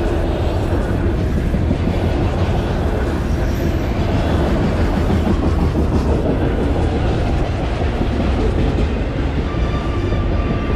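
Long freight train of autorack car-carrier railcars rolling steadily past a level crossing, its wheels running continuously on the rails.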